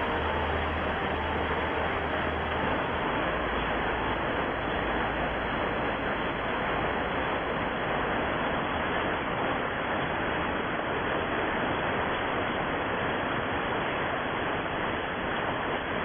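Thunderstorm wind and rain, a steady even rush with no sharp claps of thunder.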